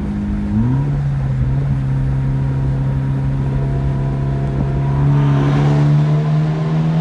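Mitsubishi Lancer Evolution X's turbocharged four-cylinder engine running with a steady exhaust note; its pitch steps up about half a second in, then climbs slowly near the end as the engine speeds up.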